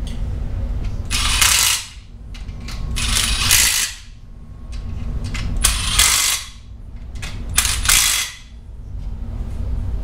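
Cordless quarter-inch impact driver run in four short bursts, each under a second, about two seconds apart.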